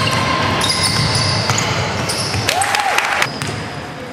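Basketball game sounds on a hardwood gym court: a ball bouncing on the floor, with short high squeaks in between.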